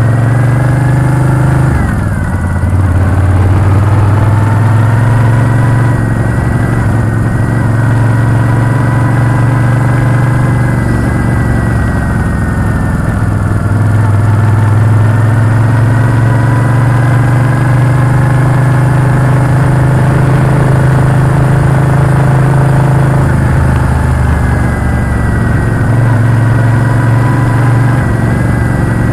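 Moto Guzzi V7 motorcycle's transverse V-twin engine running under way, with its pitch falling sharply about two seconds in, then rising and easing gently through the rest.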